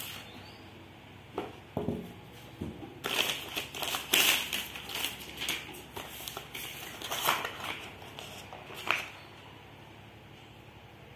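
Plastic film and cardboard packaging being handled: crinkling and rustling in irregular bursts that stop about nine seconds in.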